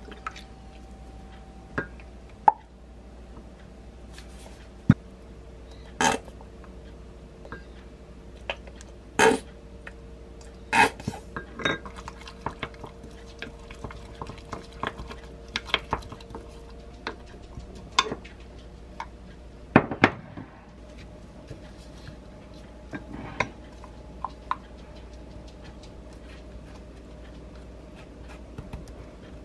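A wooden spoon knocking, clinking and scraping against a glass measuring cup as sauce ingredients are spooned in and stirred, in scattered irregular strikes over a faint steady hum.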